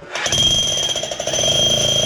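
Heavy hammer drill starting up and running hard, driving a 4-inch bit through the house wall: a loud, rapid hammering with a steady high whine.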